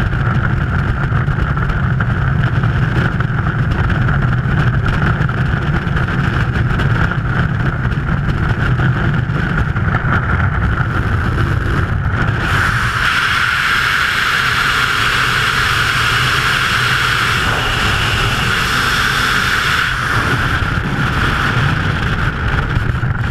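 Loud, steady rush of freefall wind buffeting a skydiver's camera microphone. About halfway through, the low rumble drops away and the higher hiss grows louder.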